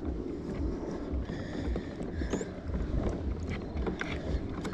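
Wind buffeting the microphone over water sloshing against a plastic kayak hull, with a few light knocks and clicks.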